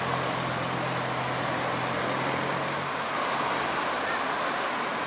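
Steady urban road traffic noise, with a low engine hum that fades out about three seconds in.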